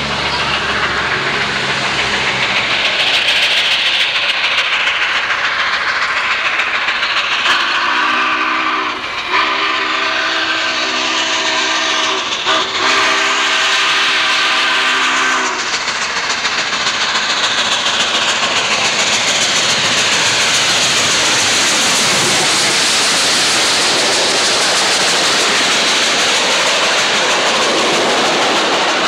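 Southern Pacific 4449, a GS-4 4-8-4 steam locomotive, working a passenger train as it approaches and passes close by, with a steady exhaust and rumble. About seven seconds in, its multi-note whistle sounds for about eight seconds, broken by two short gaps. Near the end the cars clatter past on the rails.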